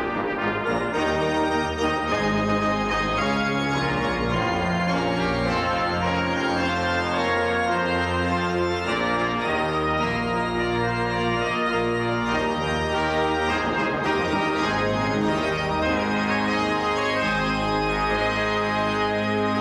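Pipe organ playing full sustained chords over a moving bass line, the chords changing about once a second.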